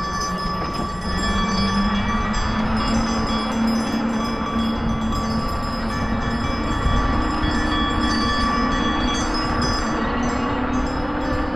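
The ride vehicle's motor runs with a steady hum that rises slowly in pitch, over a constant rumble from the tyres on rough pavement.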